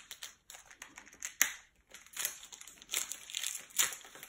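A trading-card pack wrapper being torn open and crinkled by hand: irregular crackling with a sharp snap about a second and a half in.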